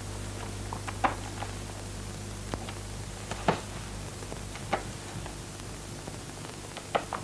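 Quiet room tone with a steady low hum and hiss, broken by a few faint, short clicks and knocks.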